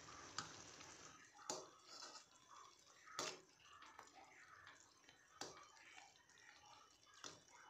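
Faint wet plops and squelches of thick kadhi with pakoras being stirred with a metal ladle in a kadhai, with a few sharp clicks spaced about two seconds apart.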